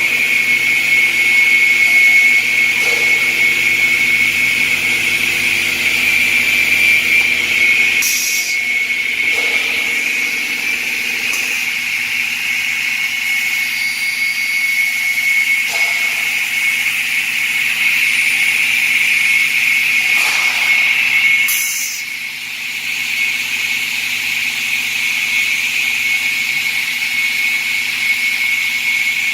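Özçelik Meteor-II aluminium cutting machine running, its motor giving a steady high whine, with a sharp click about 8 seconds in and another about 21 seconds in.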